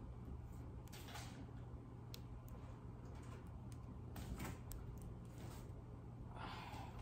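Faint handling sounds of a cardboard box: its flaps rustling and scraping a few times, with scattered light clicks.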